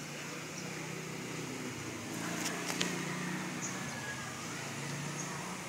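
Steady background noise with a low hum, and two sharp clicks close together about two and a half seconds in.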